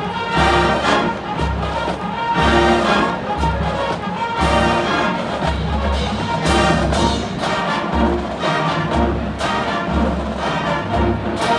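Marching band brass and percussion playing a tune, with a steady, repeating bass line underneath.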